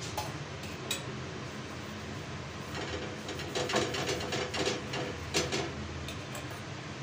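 Small stainless-steel bowl and utensils clinking and scraping while cooking, with a busy run of clinks from about three to six seconds in, over a steady low hum.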